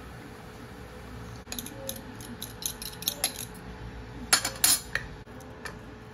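A metal fork clinking against a ceramic bowl: a run of light, irregular taps, with a couple of louder clinks about four and a half seconds in.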